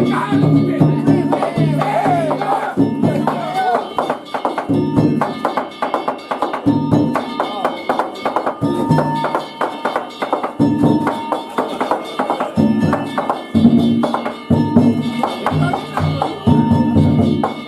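Danjiri festival music: small hand gongs struck rapidly and ringing, over recurring drum beats, with shouting voices in the first few seconds.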